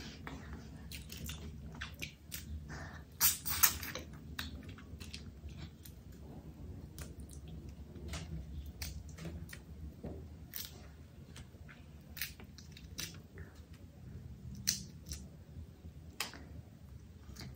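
Close-up eating sounds: a person chewing and biting food, with irregular wet mouth clicks and crunches, the loudest about three to four seconds in.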